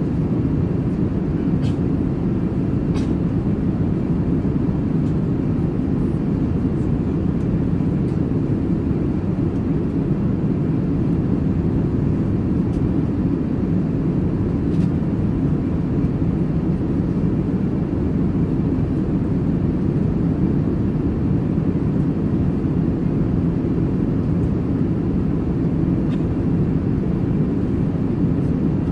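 Airbus A380 passenger cabin in flight: a steady low rush of cabin noise, with a few faint clicks now and then.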